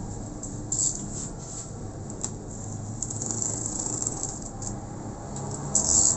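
A small blade scraping and slicing through packing tape on a cardboard shipping box, in several short, scratchy strokes. The loudest strokes come about a second in and just before the end.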